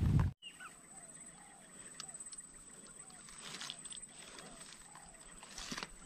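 Quiet forest ambience: a steady high insect whine with faint, short bird notes every second or so. A loud rustling noise cuts off abruptly just under half a second in, and handling rustles and clicks come back near the end.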